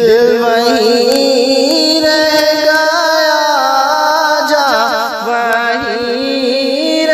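A man's voice singing a naat, drawing out one long melismatic phrase without words that wavers and glides up and down in pitch.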